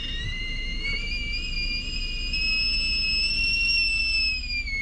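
Whistling kettle whistling at the boil, a steady high whistle that slowly climbs in pitch, then slides down near the end.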